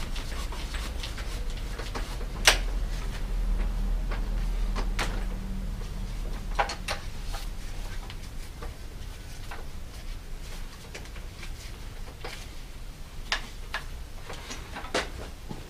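Scattered sharp clicks and knocks of hand work on a bicycle in a repair stand as a saddle is fitted onto the seat post, the loudest about two and a half seconds in, over a low steady hum.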